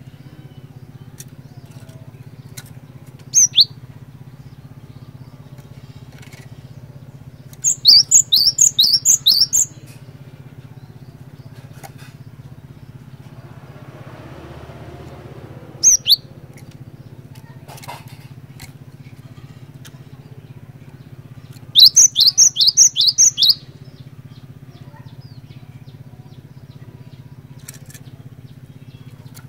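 Cinereous tit singing: two fast runs of sharp, repeated falling notes, each lasting about two seconds, with single short calls between them. A steady low hum runs underneath.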